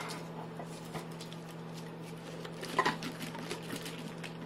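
Reflectix and foil-tape pot cozy being handled: light crinkling and small taps as it is picked up and pressed down around the pot, with a short louder burst of crackling near three seconds.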